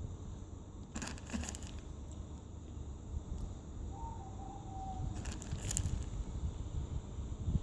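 Kittens crunching dry kibble: two short clusters of crisp crunching clicks, about a second in and again near five seconds, with a faint, short, slightly falling high call between them over a low steady rumble.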